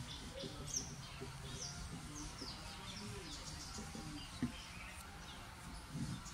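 Small birds chirping, many short high calls that slide downward in pitch, over a low steady background rumble, with a single soft knock about four seconds in.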